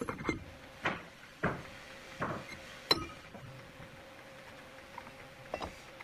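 Steel cutter head of a spindle moulder clinking and knocking against the machine's spindle and table as it is lowered on and seated: about five sharp metallic knocks in the first three seconds, the loudest about three seconds in, and one more near the end.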